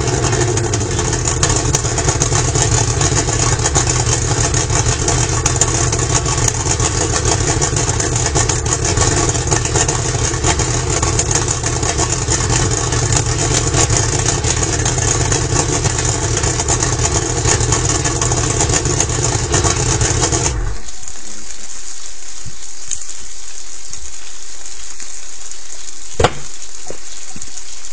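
Yamaha V-Max 225 two-stroke V6 outboard running steadily at idle on a flushing kit, then shut off abruptly about two-thirds of the way through. After it stops, a steady hiss of the flushing water running remains, with one sharp click near the end.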